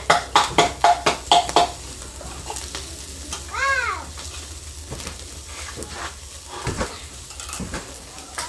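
Metal tongs clicking and scraping on the grate of a charcoal kettle grill as chicken wings are turned, with the meat sizzling underneath. A quick run of sharp, slightly ringing clicks comes in the first second and a half, then a few softer knocks. A short high call that rises and falls is heard once, about three and a half seconds in.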